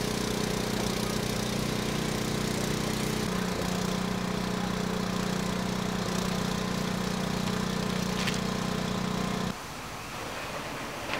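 An engine running steadily: a loud, even hum with a fast low pulse. It cuts off abruptly about nine and a half seconds in, and a quieter rushing noise follows.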